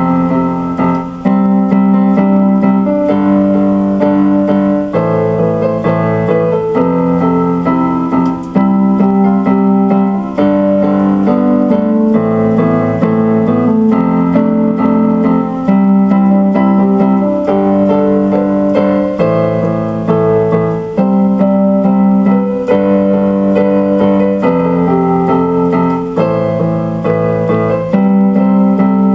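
Keyboard music: slow, held piano-like chords that change every second or two.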